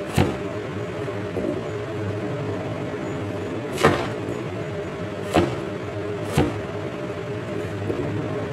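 Cleaver chopping a carrot on a cutting board: four sharp knocks of the blade striking the board, unevenly spaced, over a steady background hum.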